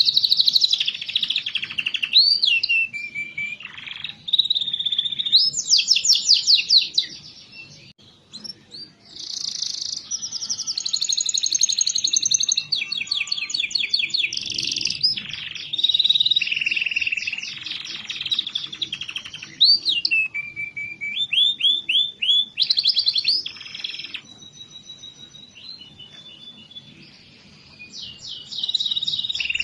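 Domestic canary singing: long runs of fast trills and rapid repeated notes, broken by short pauses.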